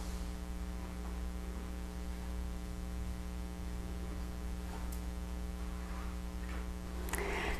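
Steady electrical mains hum with a buzzy edge, holding an even pitch throughout the pause in speech.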